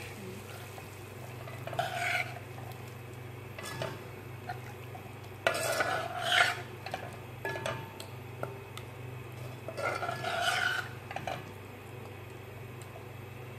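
A spoon stirring and scraping sauce-coated chopped carrots, onion and green pepper around a pan, with light sizzling. The scraping comes in three louder spells with small clicks against the pan, about 2 seconds in, around 6 seconds and around 10 seconds. A steady low hum runs underneath.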